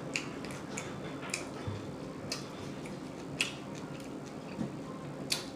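Close-miked chewing and lip smacking of a person eating, with sharp, irregular wet clicks about twice a second.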